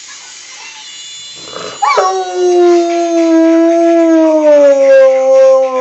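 Rottweiler howling: one long howl that begins about two seconds in with a quick upward swoop, then holds a steady pitch that sags slowly.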